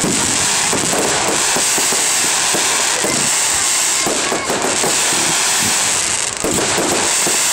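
Fireworks going off in a dense, continuous barrage: closely packed bangs and crackling with no gaps.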